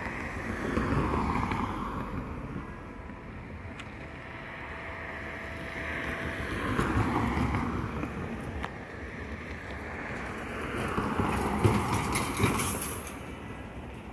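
Road traffic: three vehicles pass one after another, about five to six seconds apart, each rising and then fading away. The last pass carries extra hiss near the end.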